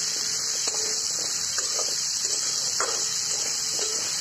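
Potato cubes frying in oil in a kadai, stirred with a metal spatula: a steady hiss of sizzling under scattered scrapes and clicks of the spatula against the pan.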